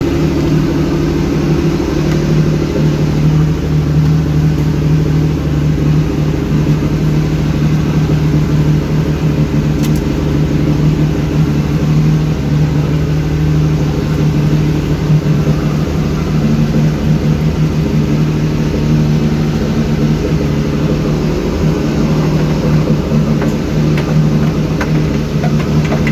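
Engine of a small fishing boat running steadily while the boat is under way.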